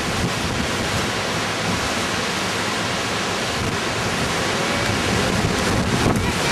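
Wind rushing over the microphone: a steady, even rushing noise.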